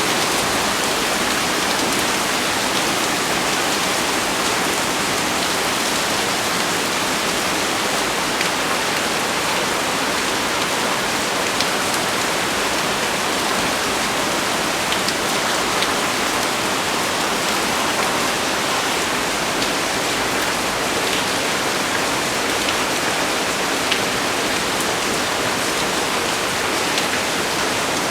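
Heavy rain pouring down steadily, a dense even hiss with scattered sharper drop impacts.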